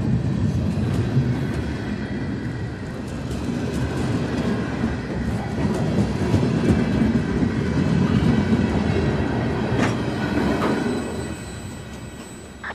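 Freight train cars rolling past close by: a steady, deep rolling noise of wheels on rail with light clicking, fading away about eleven seconds in as the last car goes by.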